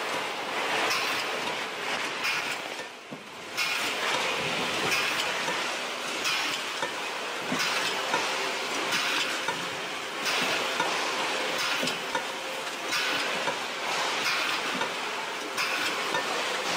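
Fish-processing line machinery running on a fishing vessel: conveyors and cutting machines giving a steady mechanical noise with frequent clattering of metal. It dips briefly about three seconds in.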